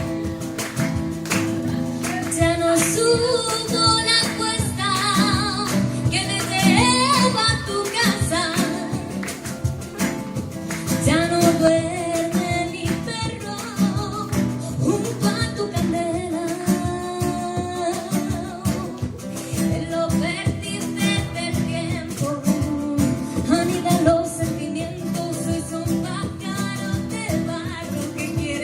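Live acoustic guitar and cajón playing a Latin, flamenco-tinged song, with the cajón keeping the beat. A voice sings a melody with vibrato over them at several points.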